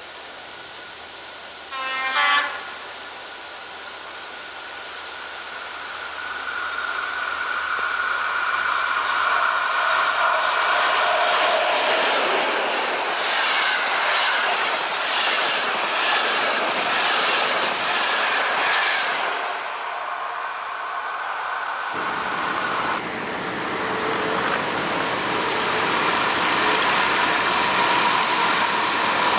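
A ČD class 754 'Nurek' diesel locomotive gives a short horn blast about two seconds in, then passes hauling a rake of passenger coaches, the wheels clattering rhythmically over the rail joints. Near the end a second class 754 diesel locomotive approaches running light, its engine running.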